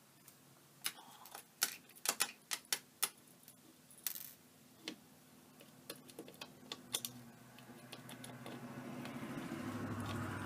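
Irregular small clicks and taps of hard parts being handled as a DJI Phantom 3 Pro drone is taken apart, thickest in the first few seconds. A low hum rises in the last few seconds.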